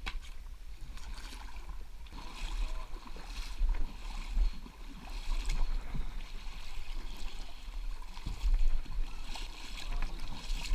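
Water splashing and sloshing around a canoe being worked up a shallow stream, in irregular bursts a second or two apart from paddle strokes and the hull being pushed through the water.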